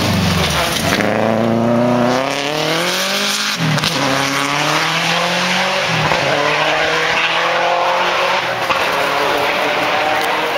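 Subaru Impreza rally car's flat-four engine revving hard as the car accelerates out of a gravel hairpin. The pitch climbs through the gears, with shifts about three and a half and six seconds in, then holds a steady note.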